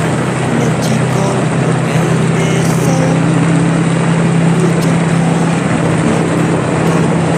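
Motorbike riding at a steady speed: a constant engine hum under a dense, even rush of wind and road noise.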